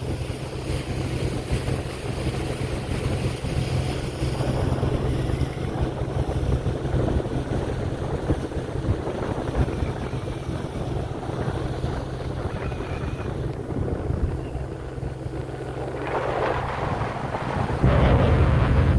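A motorboat under way: wind rushing over the microphone with the boat's motor and the water noise underneath, getting louder near the end.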